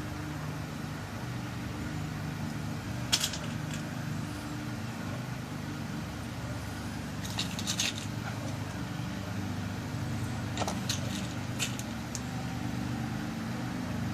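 Small metal key pins being dropped and set into a lock cylinder while it is loaded for a new key: a few light, sharp clicks and ticks, about three seconds in, around eight seconds, and a quick cluster near the end. A steady low hum runs underneath.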